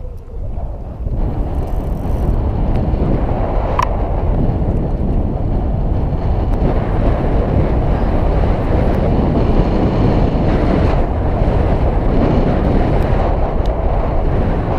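Wind rushing over a GoPro action camera's microphone as the bicycle gets moving along the path, a loud steady low rush that builds over the first second and then holds. One sharp click about four seconds in.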